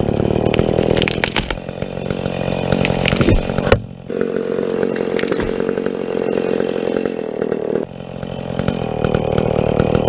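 Chainsaw running hard through a felling cut in a large tree, easing off briefly twice, about four and eight seconds in, with a sharp knock just before the first drop.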